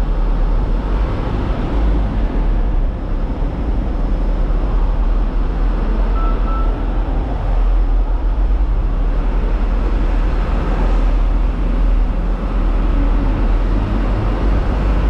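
Light truck's engine running as the truck drives slowly, heard from inside the cab as a steady low rumble.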